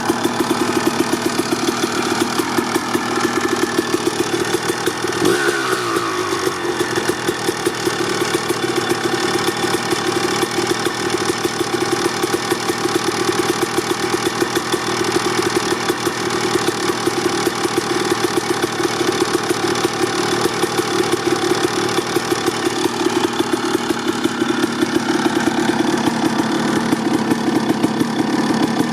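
1989 Honda CR250R's single-cylinder 250cc two-stroke engine idling steadily through an FMF Gnarly expansion-chamber exhaust, warming up after a cold start.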